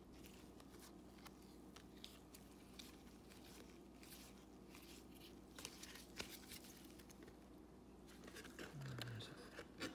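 Faint clicking and rustling of paper trading cards being flipped through by hand, a few sharper clicks about halfway through.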